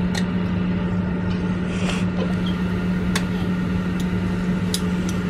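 Meat sizzling on a tabletop Korean barbecue grill plate over a steady low hum, with metal tongs clicking against the grill several times.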